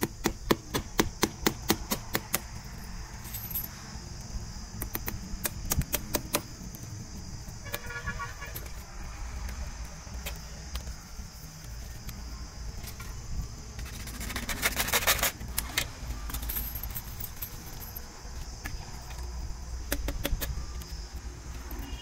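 Hammer blows fixing a PVC conduit clamp to a plastered wall: a quick run of sharp knocks through the first six seconds, and another dense run about fifteen seconds in. A steady high insect drone runs underneath, and a short horn-like tone sounds about eight seconds in.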